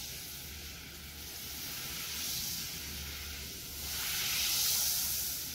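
Butter sizzling and bubbling as it melts in a hot frying pan, a steady hiss that swells about four seconds in.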